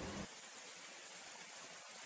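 Faint steady hiss of background noise with no birdsong, a pause in the red siskin's singing; a low rumble stops just after the start.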